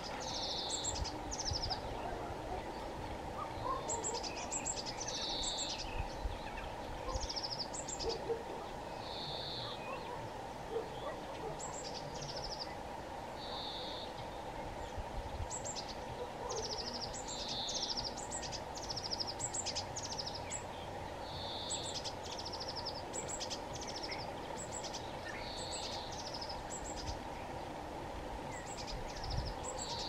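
Songbirds singing: short trilled phrases and quick high chirps repeating every second or so, over a steady background rush.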